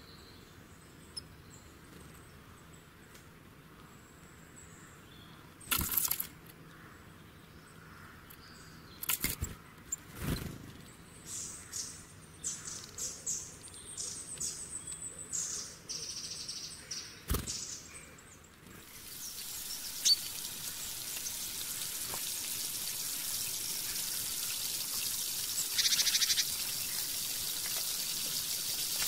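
Birds chirping, with a few sharp knocks, then about two-thirds of the way in a steady sizzle starts and builds: sliced onions frying in hot oil in an iron wok.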